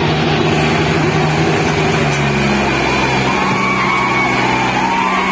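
Tractor diesel engine running loud and steady, its pitch stepping up slightly about two seconds in. A wavering higher tone sounds over it in the second half.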